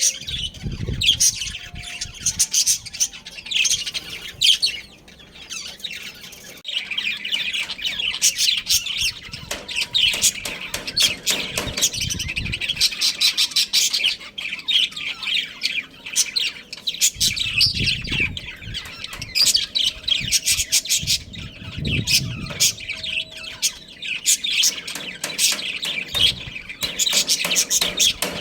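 A flock of budgerigars chirping and chattering non-stop, with many quick high-pitched calls overlapping.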